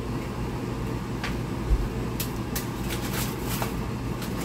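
Steady low mechanical hum, like a fan or appliance motor, with a few light clicks and knocks of things being handled and one dull thump a little under two seconds in.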